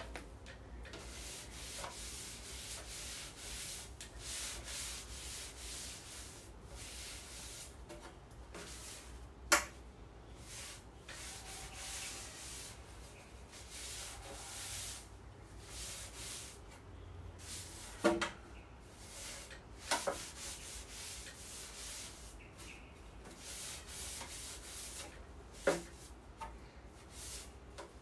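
Cleaning cloth rubbed along ceiling fan blades in repeated wiping strokes, with a few sharp knocks in between, the loudest about ten seconds in.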